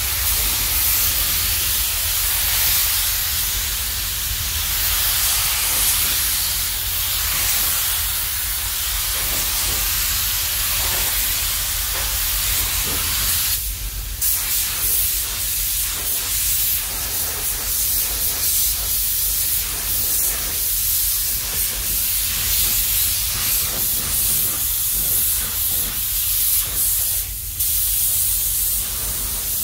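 Compressed-air paint spray gun hissing steadily as it lays on the finish coat of red paint, over a steady low hum. The hiss dips briefly about halfway and again near the end.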